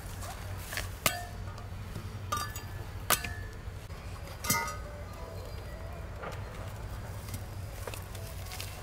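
A handful of sharp clinks and knocks of hard objects, each with a brief ring, the loudest about one, three and four and a half seconds in, over a low steady hum.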